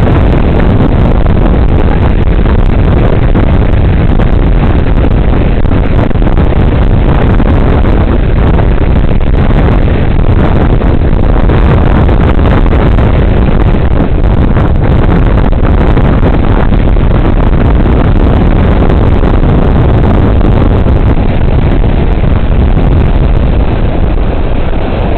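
Strong wind buffeting the microphone in a loud, steady low rumble, mixed with lake waves rolling and breaking on the shore.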